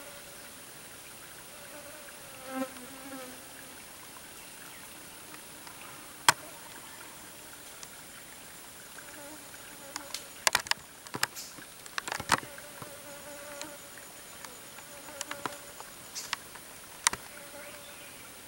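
Jungle insects buzzing and droning steadily, broken by scattered sharp clicks and snaps: a loud one about six seconds in and a cluster from about ten to seventeen seconds.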